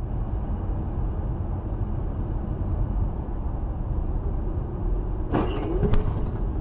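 Steady road and engine rumble of a car driving at highway speed, picked up by a dashcam inside the cabin. About five seconds in there is a brief, sharper sound with a bending pitch, followed by a single click.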